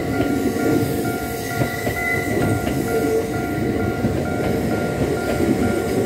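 Kintetsu electric train passing close by, its wheels rumbling and clacking over the rails. A level-crossing warning bell rings steadily over it at about two strikes a second.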